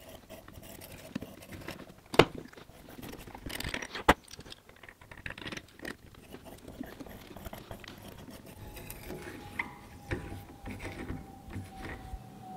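Small metal parts and hand tools being handled, with light clinks and rattles and two sharp knocks about two and four seconds in.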